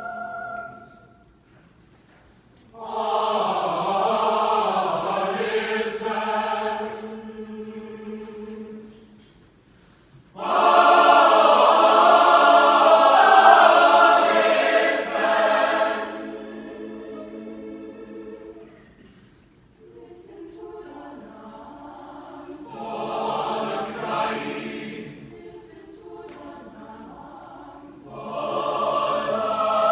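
A choir singing in sustained phrases, broken by short pauses about two seconds in, ten seconds in and twenty seconds in. The loudest, fullest phrase comes about a third of the way through.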